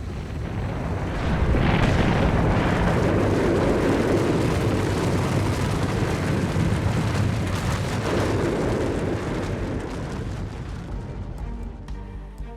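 Rumbling roar of a volcanic eruption, swelling about a second and a half in and easing off near the end.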